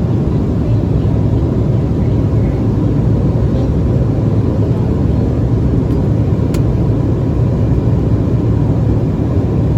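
Steady low rumble of an airliner's cabin noise in flight.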